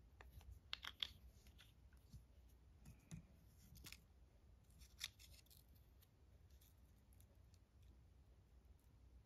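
Near silence with a few faint clicks and paper rustles from hands handling folded paper, dabbing on glue with a glue pen and pressing a small ribbon bow onto it; the loudest are two sharp clicks about a second in.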